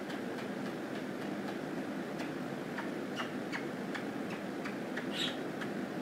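Soft, irregular little clicks and smacks, about two or three a second with a louder one near the end, as an African grey parrot is nuzzled and kissed against a person's face, over a steady low room hum.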